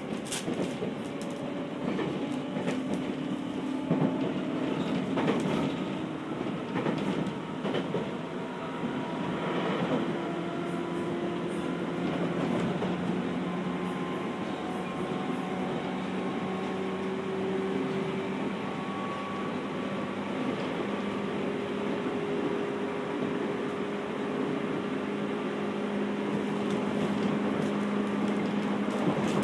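Running sound heard inside the passenger cabin of a JR 211 series electric multiple unit's motor car: traction motor and gear hum that climbs slowly in pitch as the train gathers speed, over steady rolling noise, with a few sharp wheel clacks near the start.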